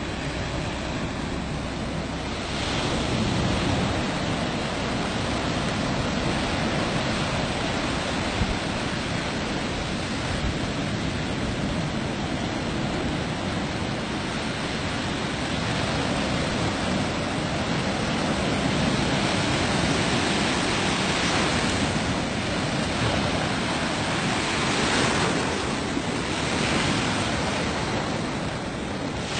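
Ocean surf washing onto the shore as a steady rushing noise that swells and eases now and then.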